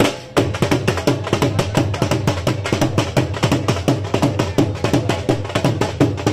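Loud music driven by rapid drumming, many strikes a second over a steady low bass tone. It cuts out briefly at the very start and resumes about a third of a second in.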